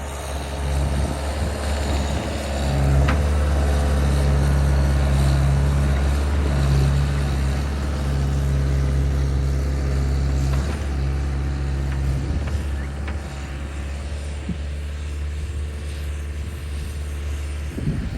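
Skid steer engine running steadily as it works, growing louder a few seconds in and easing off again past the middle.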